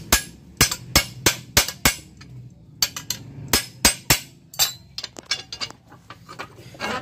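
Sharp metal-on-metal strikes on the steel spiral die of a chain-link fencing machine as it is tapped down into its mount. The strikes come in two quick runs of several, then turn into lighter clicks.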